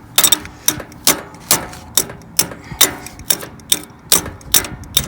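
Hammer tapping a brush section of a lawn sweeper through into its mount, with steady metallic knocks about two a second.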